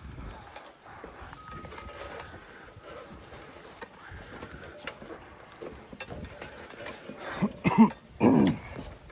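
Faint scattered clicks and knocks, then near the end two short, loud vocal sounds from a person, the second falling in pitch.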